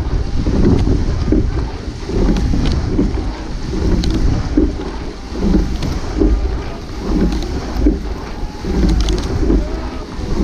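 Wind buffeting the microphone, with a low, regular pulsing roughly every second and faint distant shouts.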